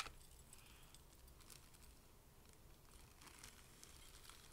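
Near silence with faint rustling of a thin plastic sandwich bag and a few soft ticks as a heavy chain necklace is slid into it.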